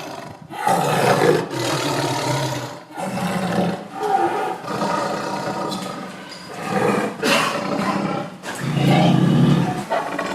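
Tiger roaring and growling, about five rough, loud roars in a row with short breaks between them.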